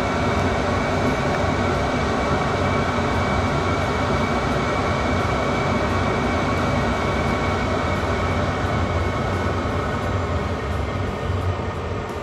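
8 kW 12 V Chinese diesel air heater (a Webasto clone) running on steadily in its shutdown phase after being switched off: its blower keeps going to purge and cool the combustion chamber, a steady rushing noise with a faint high whine, easing a little near the end.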